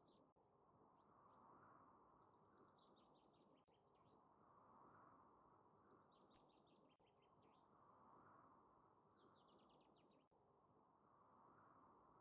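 Faint bird song: short phrases of quick notes falling in pitch, repeated every two to three seconds over a low, steady background rumble.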